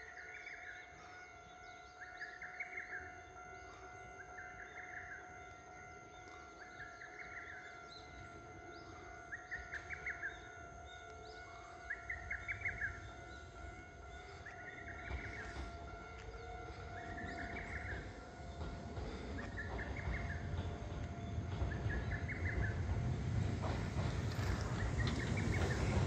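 Lesser cuckoo (hototogisu) singing its quick, staccato multi-note phrase, repeated about every two and a half seconds, some ten times. A low rumble builds up under it in the second half.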